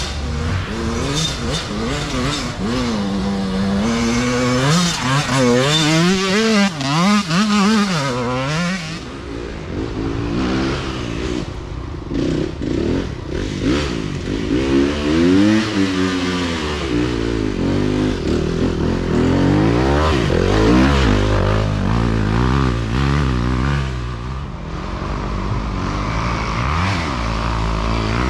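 Dirt bike engines revving as riders come along a dirt trail and pass by one after another, the pitch swinging up and down with throttle and gear changes.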